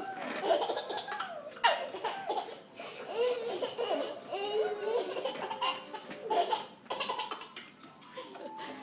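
A young child laughing hard, in repeated belly-laugh bursts, tickled by a cartoon pig burping.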